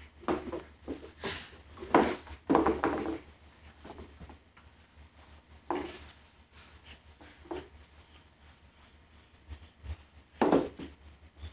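A small saddle shoe knocking and rubbing against a hardwood floor as a baby handles it, in short irregular bursts: a cluster of knocks in the first three seconds, a couple of single ones in the middle, and another near the end.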